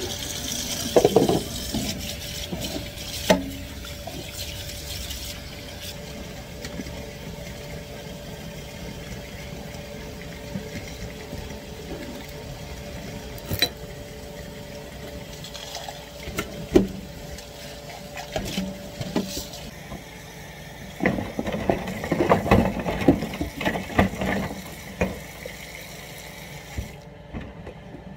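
Kitchen tap running into a stainless steel sink during hand dishwashing, with scattered clinks and knocks of cups and dishes against the sink. The clatter is thickest about three quarters of the way through.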